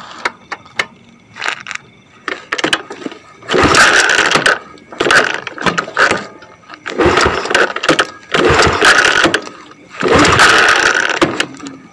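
Motorcycle engine revved three times, each burst lasting two to three seconds, idling more quietly in between.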